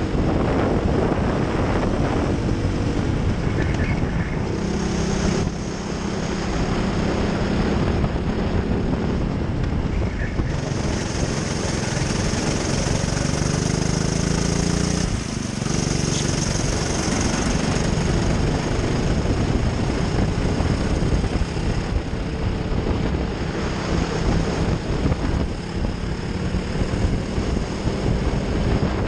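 Racing kart engine heard from an onboard camera on the kart, its pitch rising and falling repeatedly as the driver accelerates and lifts through the corners, with short dips about five and fifteen seconds in.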